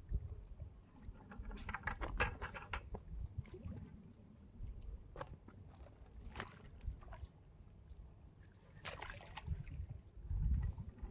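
Wind buffeting the microphone as a fluctuating low rumble, with a quick run of sharp clicks about two seconds in, a couple of single clicks later and a short rustle near the end.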